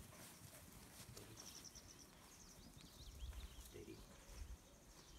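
Near silence in an open field: faint high chirps of small birds for a couple of seconds, with a low rumble of wind on the microphone.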